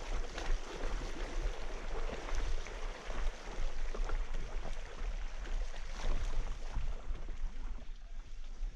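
Mountain bike ride heard from an on-bike or helmet camera: wind rumbling on the microphone, with tyre noise and many small rattles and clicks over rough ground.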